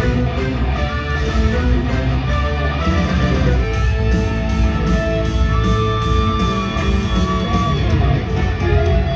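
Loud rock music led by electric guitar, with a heavy low end.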